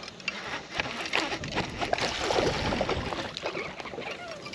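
Water splashing and sloshing at the boat's side as a hooked bass is reeled in and thrashes at the surface, with irregular sharp splashes from about a second in.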